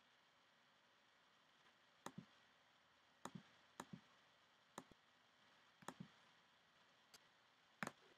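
About seven faint, sharp clicks at uneven intervals, some of them doubled, over quiet room tone; the loudest comes near the end.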